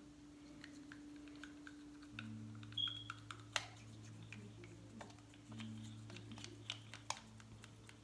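Faint light clicks and taps of small plastic paint containers and cups being handled, with a low steady hum coming in about two seconds in.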